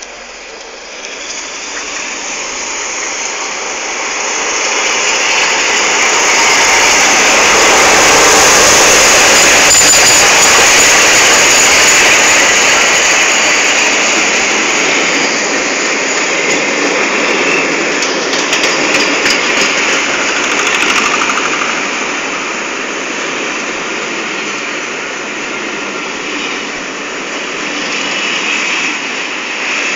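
A locomotive-hauled passenger train passing close at speed: a steady rushing noise that builds as the locomotive comes in, is loudest as it passes, then carries on as the coaches rumble by, with a run of clicks from the wheels about two-thirds of the way through.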